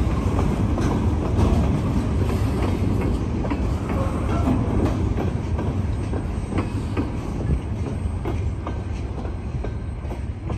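Freight cars rolling past, a steady low rumble with steel wheels clicking irregularly over the rail joints, easing off slightly toward the end.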